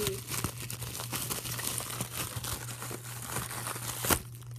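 Plastic bubble wrap crinkling and rustling as it is handled and pulled apart by hand, with many small crackles and one sharp snap a little after four seconds in.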